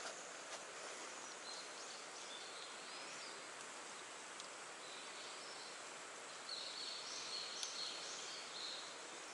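Quiet outdoor ambience: a steady hiss with faint, high-pitched chirping calls from wildlife, a short run about a second and a half in and a longer one from about six and a half seconds to near the end.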